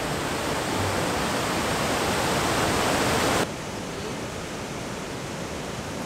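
Waterfall: a steady rush of falling water. About halfway through it cuts abruptly to a quieter, duller rush.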